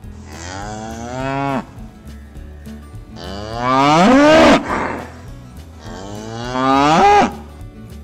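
Cattle mooing: three long moos about three seconds apart, the middle one the loudest.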